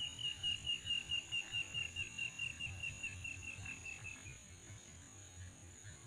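A wild animal calling: a fast run of high chirps, about five a second, sliding slowly down in pitch and fading out about four seconds in. A steady high-pitched hum runs underneath.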